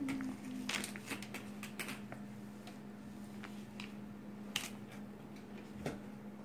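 A baby's hands pressing and slapping a computer keyboard: a quick cluster of clicks and taps in the first two seconds, then a few scattered knocks as the baby pats the computer tower. A steady low hum runs underneath.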